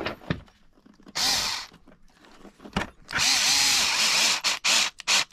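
Electric screwdriver driving in a screw, run in short bursts: one about a second in, a longer one of about a second and a half past the middle with the motor's pitch rising and falling, then a few quick blips near the end.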